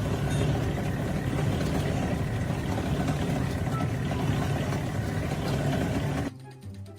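A heavy engine running steadily, loud and rough, then cutting off abruptly about six seconds in.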